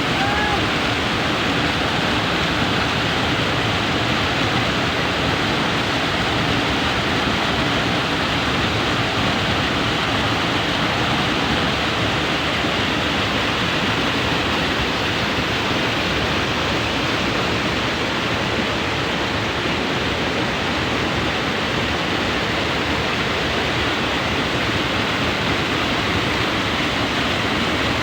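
Flowing water rushing steadily, a constant even roar of a fast stream.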